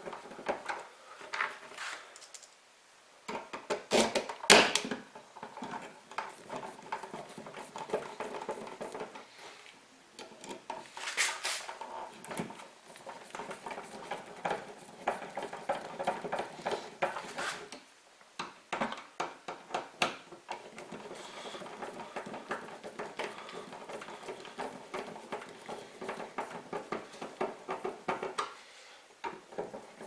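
Hand screwdriver turning the mounting screws of a GFCI receptacle into its metal strap and wall box: a long run of small metallic clicks and scrapes, with sharper knocks about four and eleven seconds in.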